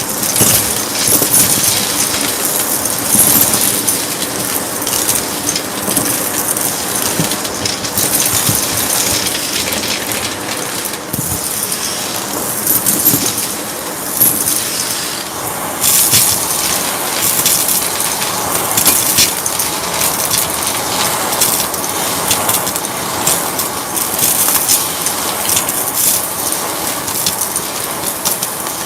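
Purple Shark vacuum cleaner running continuously, its loud rushing suction broken by frequent small clicks and rattles as it is pushed over the floor.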